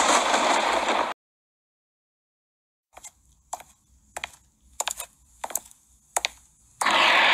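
Animated energy power-up sound effect: a loud rush that cuts off about a second in, then silence, then about seven sharp clicks roughly half a second apart, and another loud power-up rush starting near the end.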